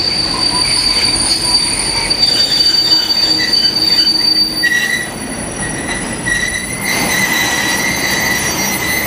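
Wagons of a steel-coil freight train rolling past with their wheels squealing on the rails. A high steady squeal gives way to a lower one about halfway through, over the rumble of the wagons.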